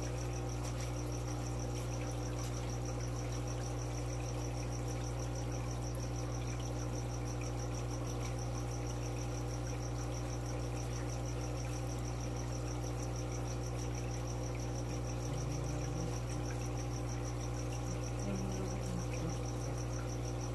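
Steady low electrical hum of fish-room equipment, with a high, evenly pulsing trill running over it.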